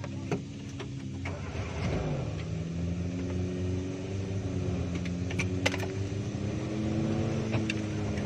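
Suzuki Jimny off-roader's engine running under load. Its pitch drops about two seconds in, then holds and slowly rises, with a few sharp knocks and rattles over it.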